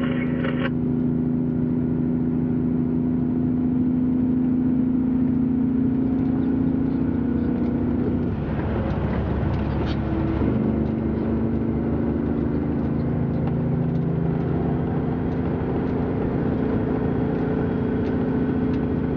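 Truck engine running with a steady drone. Its pitch dips with a rush of noise about eight seconds in, then settles back to a steady note about two seconds later.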